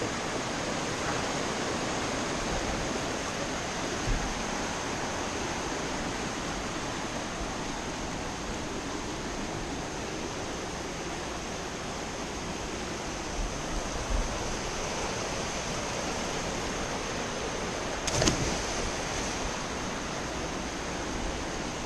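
Steady rushing noise with a few soft low thumps and a brief swell near the end.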